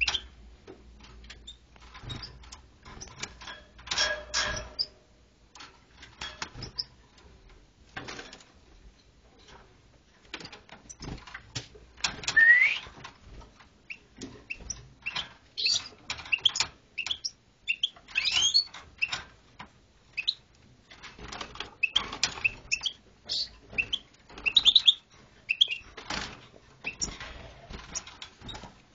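A bird chirping in short, scattered calls mixed with clicks and knocks, with one louder rising chirp near the middle.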